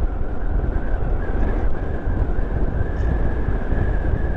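Motorcycle riding along at a steady speed: wind rumble on the microphone mixed with engine and road noise, and a thin steady whine.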